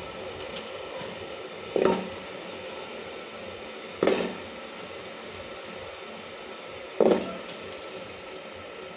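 Indian gooseberries (amla) dropped by hand into sugar syrup in a metal pot: a few short plops and knocks, the three loudest about two, four and seven seconds in, over a steady low hiss.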